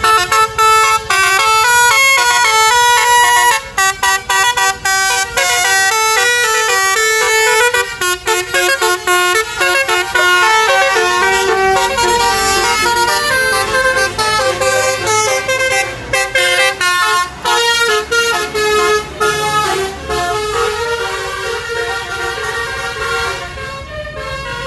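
A bus's basuri musical air-horn set, a bank of electric trumpet horns, plays a fast, many-note melody as the bus passes close by. The melody grows fainter over its second half as the bus pulls away.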